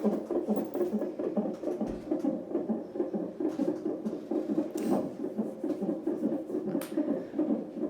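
Fetal heartbeat from a CTG monitor's Doppler ultrasound: a fast, even, whooshing pulse that runs steadily, with a couple of short clicks in the second half.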